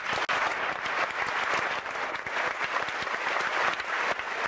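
Large audience of schoolboys applauding, a dense, steady clapping.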